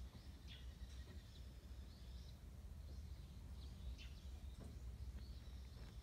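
Faint background sound: a steady low rumble with a few short, high, downward chirps of small birds.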